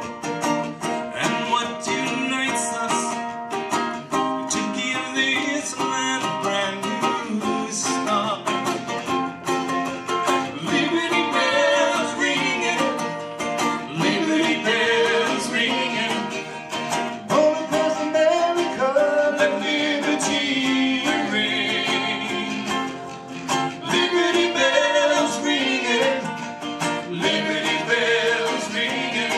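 Live performance of an original patriotic song: singing over guitar accompaniment.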